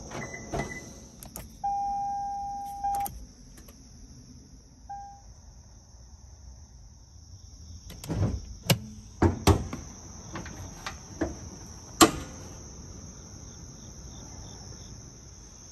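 A 2012 Lexus CT200h's door is opened with a click, and the car's steady warning chime sounds for about a second and a half, followed by one short beep. Several sharp clunks follow as the hood release is pulled and the hood latch is opened, the loudest about twelve seconds in. Crickets chirp steadily in the background.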